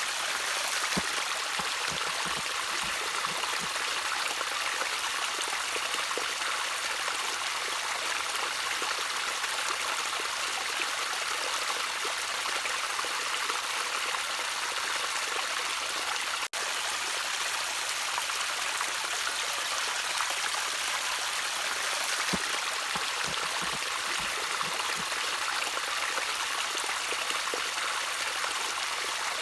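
Stream water trickling and splashing steadily, with a few low plops here and there. The sound breaks off for a split second just past halfway.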